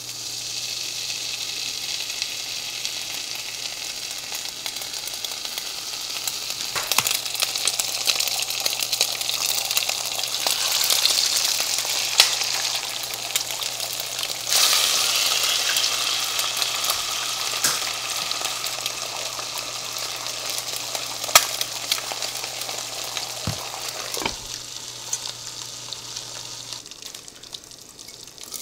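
Ham slices frying in oil in a non-stick frying pan: a steady sizzle with scattered sharp pops. The sizzle grows louder as eggs go into the hot oil, with a jump about halfway through. It turns duller near the end once a glass lid covers the pan.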